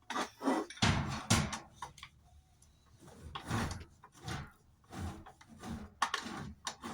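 Whirlpool washing-machine transmission being turned and worked by hand, giving irregular scraping and knocking noises in uneven bursts. The repairer puts the noise down to worn bearings.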